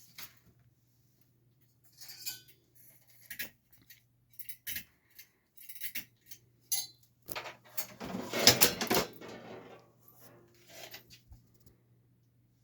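Small hard objects clinking and clattering as they are handled: a run of separate knocks and clinks, busiest and loudest about eight to nine seconds in, over a faint steady low hum.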